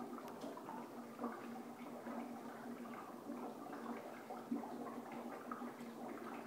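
Dry ice sublimating in a bucket of hot water: a steady, irregular bubbling and gurgling with a few sharper pops.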